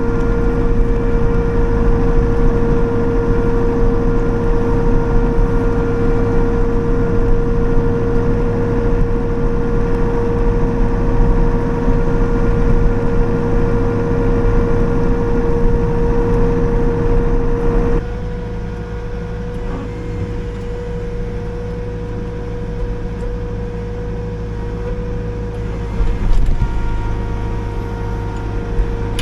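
Liugong 9051F mini excavator running under work, its engine and hydraulics giving a steady rumble with a high steady whine. About 18 s in the sound drops suddenly to a quieter, lighter running. There is a short louder noise about three seconds before the end.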